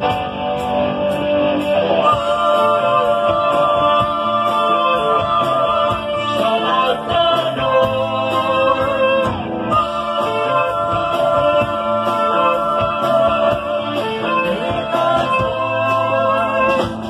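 Live rock band with vocals over electric guitars, bass, keyboard and drums, heard through the PA. Sung phrases start about two seconds in and carry on with a short break midway.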